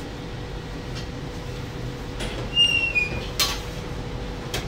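Steady low rumble of kitchen background noise with a faint hum. About two and a half seconds in comes a short squeak, falling slightly in pitch, then a sharp knock, and a lighter click near the end.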